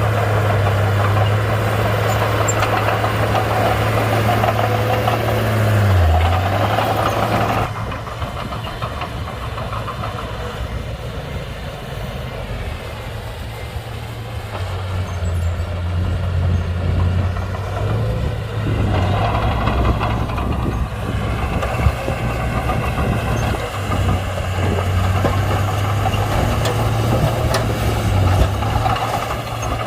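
Komatsu D31-P bulldozer's diesel engine running steadily as it works. Its pitch dips briefly about six seconds in, it eases off and gets quieter from about eight seconds, and it builds back up over the second half.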